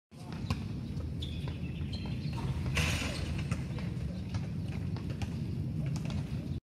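Scattered footfalls and shoe scuffs of people skipping and kicking on a rubber running track, over a steady low rumble, with a few short bird chirps.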